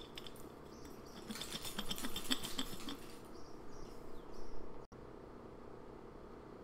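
Light clattering and clinking of kitchen things being handled for about two seconds. The sound then cuts off suddenly to a faint, steady room hum.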